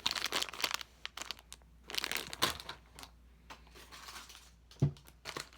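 Plastic squishy packaging crinkling in a few bursts as it is handled, with one short thump near the end.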